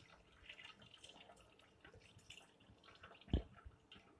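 Faint dripping and trickling of tamarind water through a mesh strainer into a bowl as the pulp is pressed with a spoon, with small scattered ticks. A single soft thump comes a little past three seconds in.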